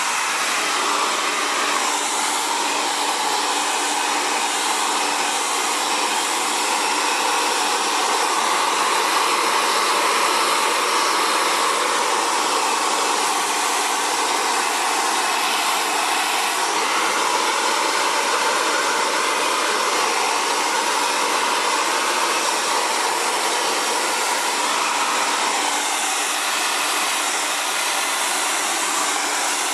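Xtava Allure 2200-watt ionic ceramic hair dryer running steadily, a constant rush of air over a low motor hum, its tone shifting slightly now and then as it is moved.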